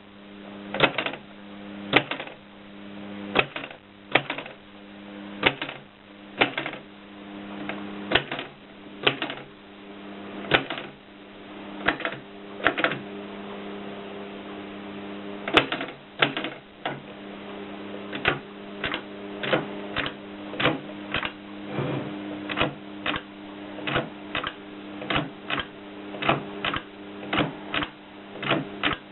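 AEG Mignon 4 index typewriter being typed on: single sharp strikes at an uneven pace, slower at first, a pause of a couple of seconds near the middle, then quicker at about two strikes a second.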